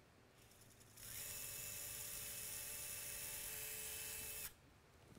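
Small surgical power drill running at a steady pitch for about three and a half seconds, drilling through the plate's compression slot into the middle phalanx. It starts about a second in and stops suddenly.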